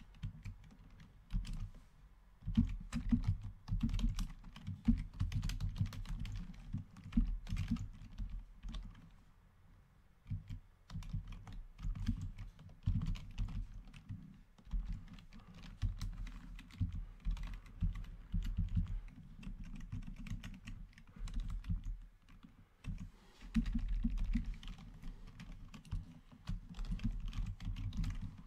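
Typing on a computer keyboard: uneven runs of key clicks with a couple of short pauses.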